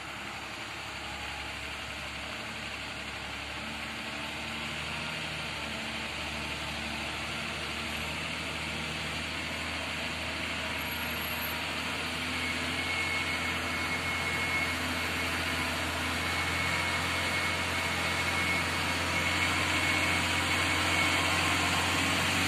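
Diesel engine of a loaded Mitsubishi truck running steadily, growing gradually louder as the truck draws near on a muddy dirt road. A thin high whine joins it about halfway through.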